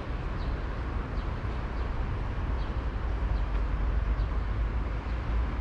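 Steady low outdoor city rumble, with faint short high chirps recurring about once a second.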